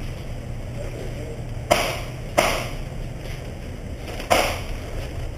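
Three gunshots at an indoor shooting range: about a second and a half in, again under a second later, and once more near the end, each cut short with a brief echo. A steady low hum runs underneath.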